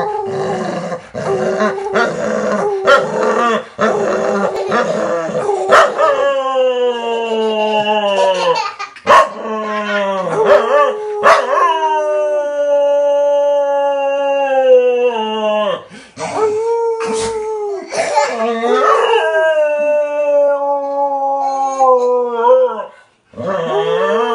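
Golden retriever howling with a man howling along. Choppy, broken sounds for about the first six seconds, then a series of long, drawn-out howls, each sliding down in pitch, with short gaps between them.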